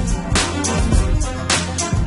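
Backing music with a steady beat: a strong drum hit about once a second, lighter hits between, over a sustained bass line.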